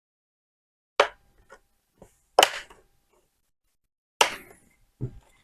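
Plastic bottom cover of a Lenovo ThinkPad T450 being pressed down and snapping into place: three sharp clicks, about a second and a half apart, with a few fainter ones between, as the clips seat along the edges.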